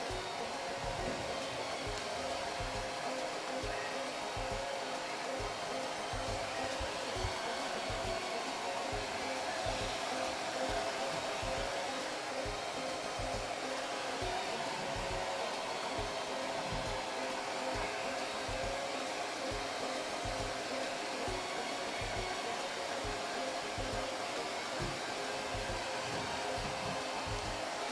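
Handheld hair dryer made for people, running steadily with a continuous blowing hiss and a steady motor hum.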